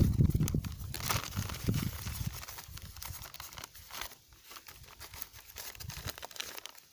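Black plastic nursery bag crinkling and tearing as it is cut and peeled off a rooted cutting's soil ball. A low rumble under the crackling in the first two seconds fades, leaving fainter crinkles.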